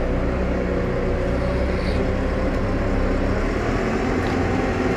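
New Holland T5 120 tractor's four-cylinder diesel engine running steadily under load while pulling a three-furrow plough that has just been lowered into the ground.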